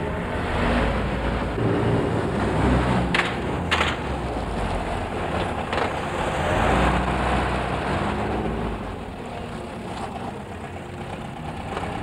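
A car engine running with road and tyre noise as cars drive along a street. The sound swells and eases, and there are two brief sharp sounds a little over three seconds in.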